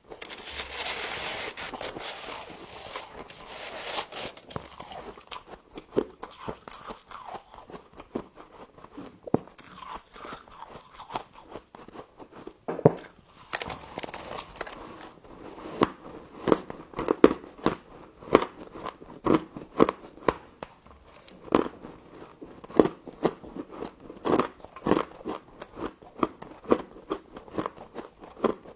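Humidifier frost being bitten and chewed close to the microphone: sharp, crisp crunches, scattered at first and coming thick and fast through the second half. A rustling hiss runs for the first few seconds.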